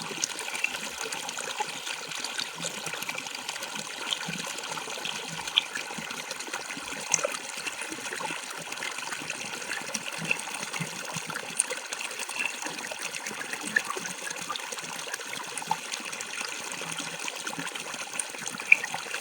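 Water falling and splashing in a steady stream, with many small sharp splashes and drips standing out here and there.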